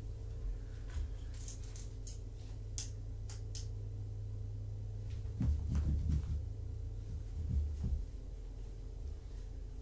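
Soft thumps and rustling on a blanket-covered floor as a kitten scrambles and pounces, clustered about halfway through, over a steady low hum. A few faint light ticks come earlier.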